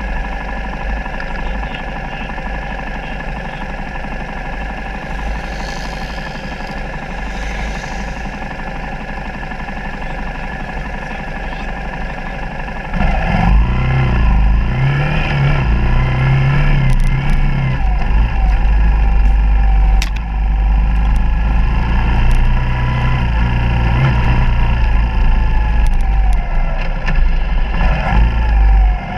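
Suzuki DR200's single-cylinder four-stroke engine idling steadily. About 13 seconds in it pulls away and rides on, louder, its revs rising and falling as the bike is ridden along a dirt trail.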